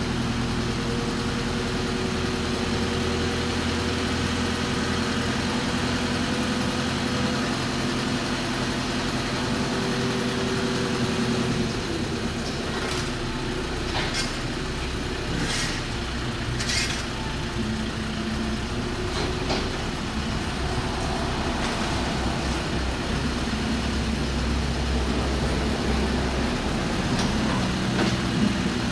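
Heavy road-works vehicle's engine running steadily, its note shifting about twelve seconds in, with a few short sharp noises between about thirteen and twenty seconds in.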